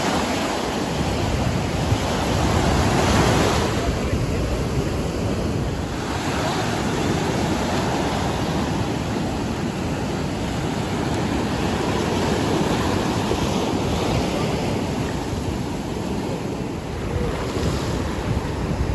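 Sea surf breaking and washing up over the sand in the shallows, with wind buffeting the microphone; a wave swells loudest about three seconds in.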